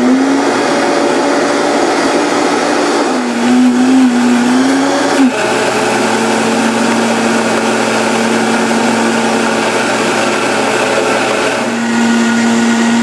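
Vitamix blender running, working hard through a thick milkshake of ice cream, ice cubes and a whole glazed donut. The motor's hum wavers in pitch for the first few seconds, then settles to a steady, slightly lower pitch about five seconds in.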